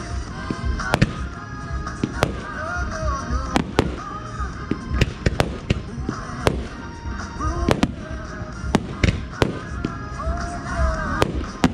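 Aerial fireworks going off in a string of sharp, irregular bangs, roughly one a second, over the show's accompanying music.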